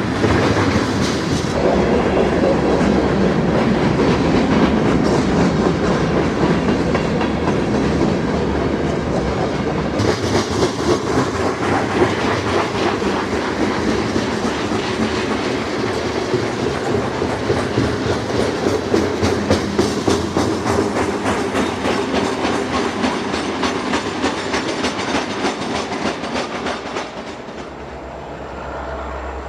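Freight train rolling past, its wheels clicking steadily over rail joints under the rumble of the cars. The sound falls off suddenly near the end.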